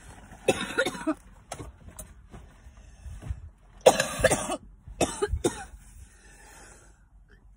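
A woman coughing in three short fits, the loudest about four seconds in, the smoker's cough of someone taking hits of cannabis smoke.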